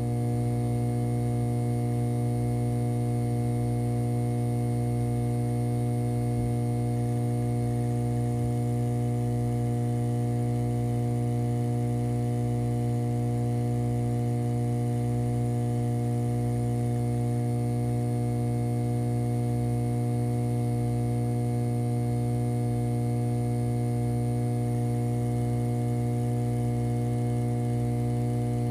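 A steady electronic hum: a low buzzing drone with several fixed higher overtones and a faint high whine, unchanging in pitch and level.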